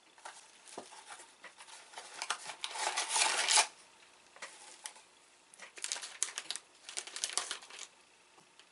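Plastic snack bag crinkling as it is handled and turned over, in irregular crackles, loudest about three seconds in, with a second run of crackles about six to eight seconds in.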